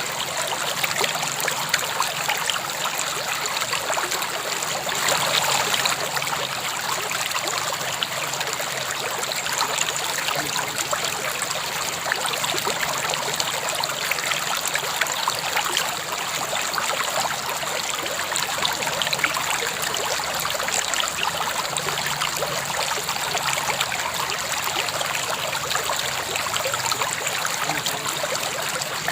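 River water flowing steadily over rocks: a continuous rushing and burbling.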